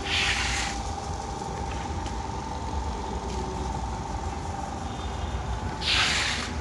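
Single-disc rotary floor scrubber running over wet tiles: a steady motor hum with a high whine over it. Two short bursts of hiss, one right at the start and one near the end, are the loudest sounds.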